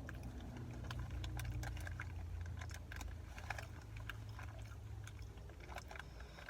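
Someone chewing crunchy Chili Cheese Fritos corn chips: a run of irregular, crisp crunches over a low steady hum.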